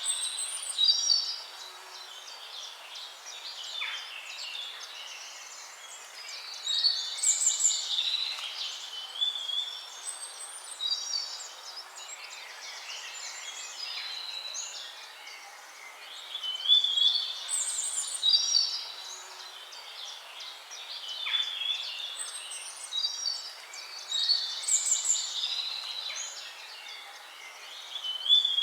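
Songbirds singing: loud, high, warbling phrases come in clusters about every eight seconds over steady softer chirping.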